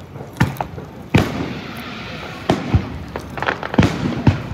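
Aerial firework shells bursting overhead: about eight sharp bangs at uneven intervals, the loudest a little over a second in.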